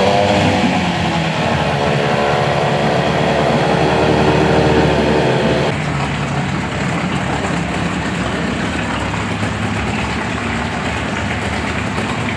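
Boat motor running, its pitch climbing at the start and then holding steady, then easing off to a quieter, lower running about six seconds in.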